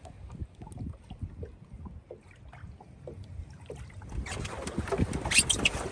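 Small wavelets lapping against a wooden dinghy's hull and the sandy shore in shallow water, soft little splashes. About four seconds in, the sound gets louder: busier, sharper splashing with wind on the microphone.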